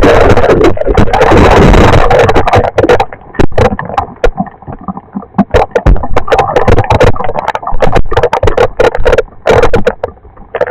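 Storm noise, loud enough to overload the microphone: a dense rush of wind and pelting, thinning into a rapid, uneven patter of sharp hits about three seconds in, and thickening again near the end.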